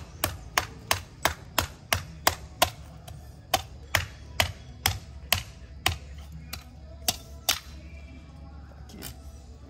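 Green coconut being hacked open with a large kitchen knife: a run of sharp chops about three a second, slowing after a few seconds and stopping near the end.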